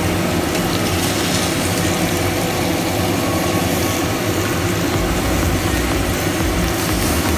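Leafy greens sizzling in a hot wok as water is poured in and stirred with a plastic spatula, over a steady low mechanical hum.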